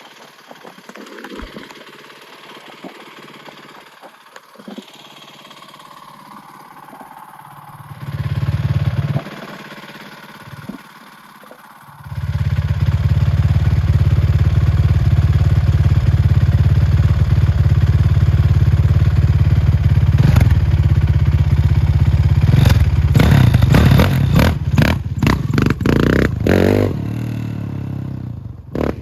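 Honda TRX450 quad's single-cylinder four-stroke engine being ridden. It is faint at first, surges loudly about eight seconds in, then runs loud and steady from about twelve seconds, with the revs rising and falling over the last several seconds.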